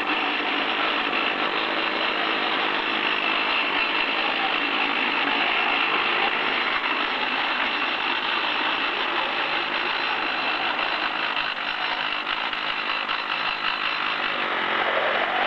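Hand-held rock drill running continuously, a dense, steady rapid hammering.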